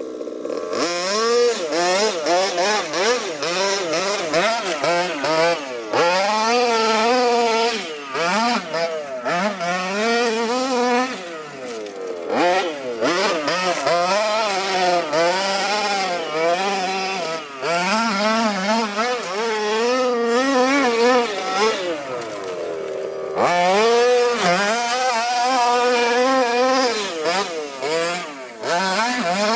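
HPI Baja 5T 1:5-scale RC car's 26 cc two-stroke gasoline engine, fitted with a Jet-Pro tuned pipe, revving up and down over and over as the car is driven hard. It falls back to a lower idle several times, the longest about three-quarters of the way through.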